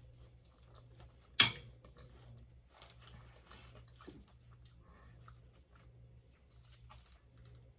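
Quiet chewing and mouth sounds of a person eating, with one sharp clink about a second and a half in as a metal spoon is set down on a ceramic plate. Faint small ticks follow as a glass of water is lifted for a sip near the end.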